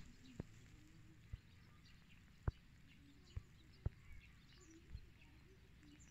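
Near silence outdoors, with a few faint, short clicks scattered through it.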